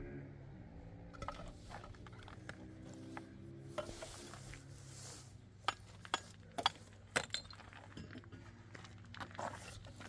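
A few sharp clinks, mostly bunched about two-thirds of the way through, over a steady low hum.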